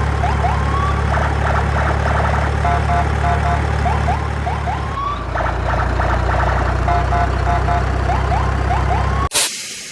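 Electronic siren cycling through short beeps, a rapid warble and rising whoops, the pattern repeating about every four seconds over a steady low hum. It cuts off suddenly near the end.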